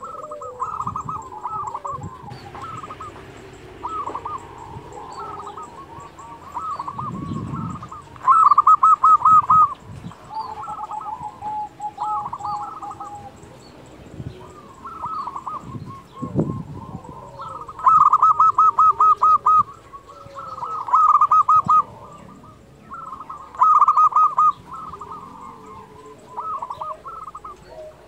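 A local-strain zebra dove (perkutut lokal) singing its cooing song in repeated rapid, trilled phrases. Several phrases are much louder than the rest: one about a third of the way in and three in the second half.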